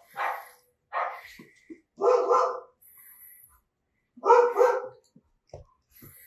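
Recorded barking of a large dog, played back: a string of separate barks with pauses between them, the loudest coming as doubled barks about two seconds in and again about four and a half seconds in.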